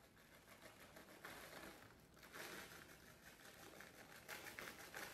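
Near silence, with faint, brief rustling as chopped kale is shaken out of a plastic bag into a slow cooker.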